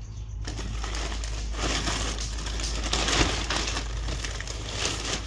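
Rustling and crinkling of corn husks being stripped from fresh ears of corn and of a plastic bag being handled: a dense crackling that starts about half a second in and grows busier in the middle.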